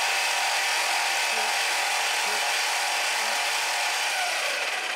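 Mini lathe with a brushless motor running steadily at about 2500 rpm in high gear: an even whine from the motor and steel gear train, with the chuck spinning under power.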